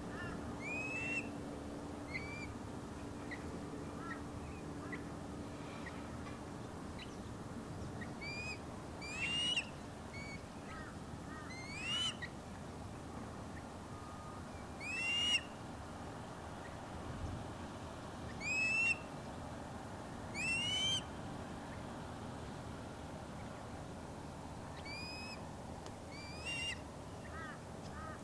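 Ospreys calling: short, rising whistled chirps, often two or three in quick succession, coming in groups every few seconds.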